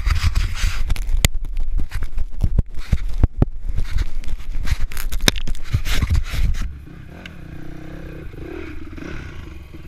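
Scraping, rubbing and knocking of a handheld action camera's case against the microphone, loud and jumbled, stopping suddenly about two-thirds of the way in. After that, a dirt bike engine runs steadily and more quietly.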